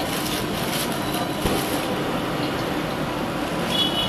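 Steady roar of a commercial gas stove burner on full flame under a wok of simmering gravy, with a light knock about a second and a half in. A high steady whistle-like tone comes in near the end.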